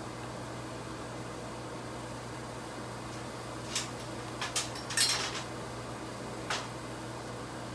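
Steady hum of workshop machines, with a few short, sharp crackling or clanking bursts between about four and six and a half seconds in, the loudest just after five seconds.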